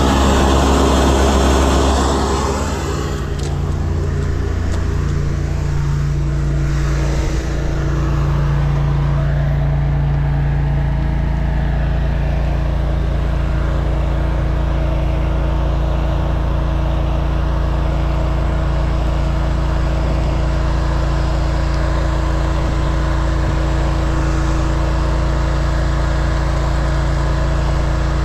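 High-pressure drain jetter's engine running steadily under load, its note shifting up a little about eleven seconds in. A hiss of water spray sounds over it for the first couple of seconds.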